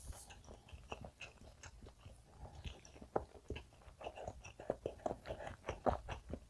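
Close-miked chewing of a mouthful of soft castella sponge cake with the mouth closed: quiet, irregular wet mouth clicks and smacks, a little busier over the last couple of seconds.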